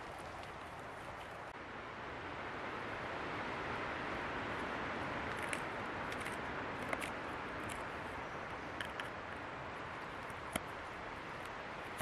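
Wind gusting through trees, swelling for a few seconds and then easing, with a handful of light clicks and knocks scattered through it.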